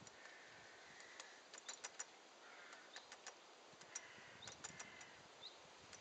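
Faint, sharp ticks in quick clusters of a few at a time: a great spotted woodpecker's bill pecking at peanuts in a wire-mesh feeder, with faint birdsong behind.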